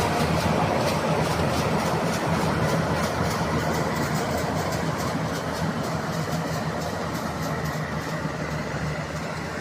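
Rice combine harvester running steadily: a constant engine hum under a rapid mechanical rattle from its cutting and threshing works, slowly growing fainter.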